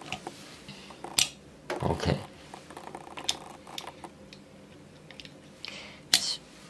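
Light clicks and taps from a small die-cast model car being handled on a tabletop, its little doors being worked; a sharp click comes about a second in and another near the end.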